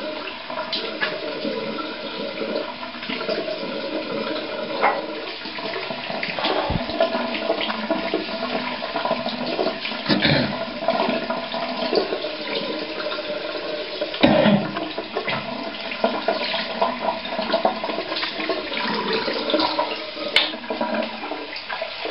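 Tap water running steadily into a bathroom sink, with irregular splashes and knocks from rinsing.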